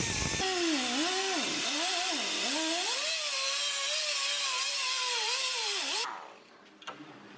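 Handheld cut-off tool with an abrasive wheel grinding through metal clamped in a vise: a harsh hiss with a whine whose pitch keeps dipping and recovering as the wheel bites and eases. It stops about six seconds in.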